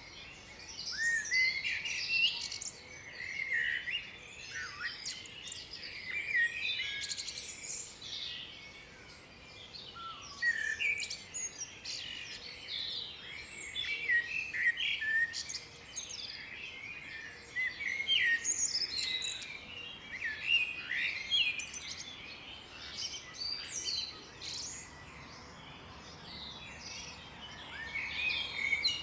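Several songbirds singing at once: a dense, overlapping chorus of quick high chirps and trills.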